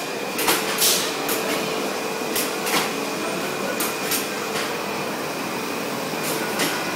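Amusement ride machinery running with a steady whirring hum, broken by irregular sharp clicks and clunks, over the steady din of an indoor amusement hall.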